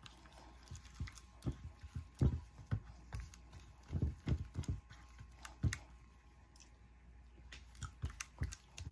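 Silicone spatula stirring a thick, wet seasoning paste in a glass baking dish: faint, irregular taps and squishes against the glass, pausing briefly a little past halfway.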